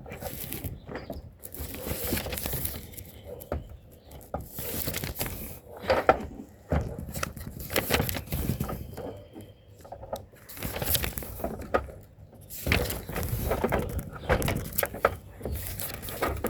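Irregular handling noise: plastic parts of a Hayward suction pool cleaner knocking and clicking as its tail piece is being fitted, with rustling in between.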